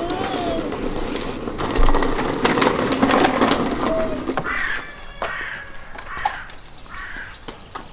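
Hard plastic wheels of a child's ride-on toy car rattling and clicking over brick paving for about four seconds, then a few short bird calls, like crows cawing.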